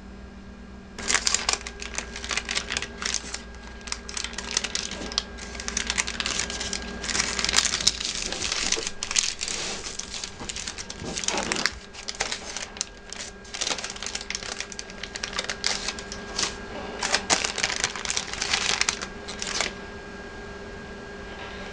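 Aluminium foil and parchment paper crinkling and rustling in irregular bursts as a food packet is unwrapped by hand. The crinkling stops about 20 seconds in.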